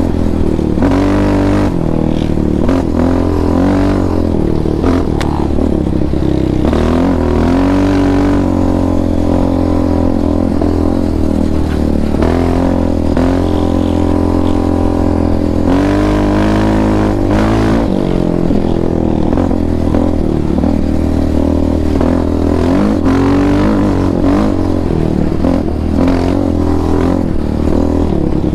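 Yamaha Raptor 700R's single-cylinder four-stroke engine running under throttle while riding, its pitch rising and falling again and again as the throttle is opened and eased off.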